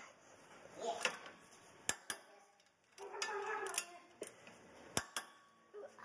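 Metal wrench clicking and clinking on a front brake caliper bolt as it is tightened, with two pairs of sharp clicks, one about two seconds in and another about five seconds in, and lighter metallic clinks and scrapes between them.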